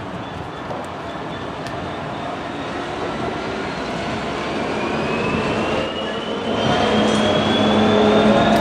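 A train running at a station, growing steadily louder, with a whine that rises in pitch through the second half and a steady engine note coming in near the end.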